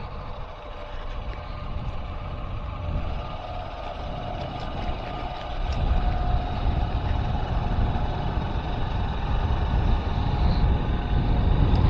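Vehicle running along a road: a steady low engine rumble with road and wind noise, getting louder about halfway through.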